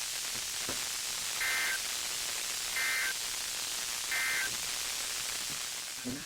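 Radio static hiss from a NOAA Weather Radio receiver, broken by three short, identical two-tone data bursts about 1.4 seconds apart: the SAME digital end-of-message code that closes an Emergency Alert System broadcast. The hiss fades out at the very end.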